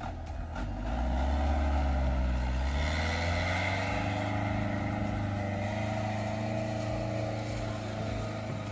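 Small flatbed truck's engine pulling away on a dirt track, rising in pitch over the first few seconds as it gathers speed, then running steadily as it moves off.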